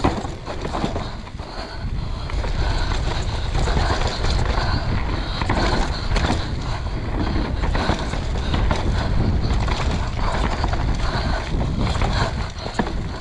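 Mountain bike riding fast down a dirt trail: knobby tyres rolling on loose dirt and the bike rattling over bumps in many small knocks, with wind buffeting the microphone throughout.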